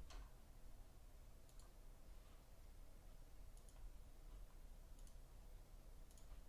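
Near silence with faint, sharp clicks about every second and a half, over a low hum.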